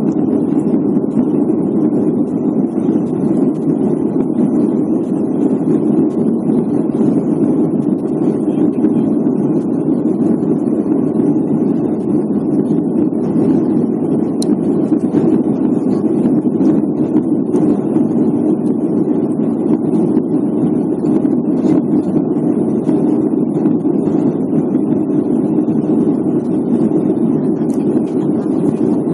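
Steady drone of an airliner cabin in flight: engine and airflow noise.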